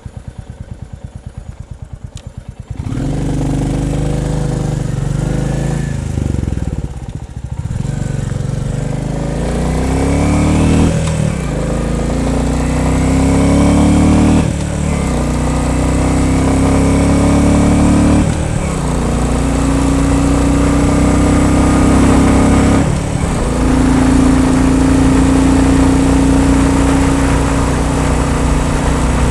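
Royal Enfield Bullet 350 single-cylinder engine running slowly, then pulling away about three seconds in. It accelerates through the gears: the revs climb in each gear and dip at about five gear changes, then it settles to a steady cruise near the end.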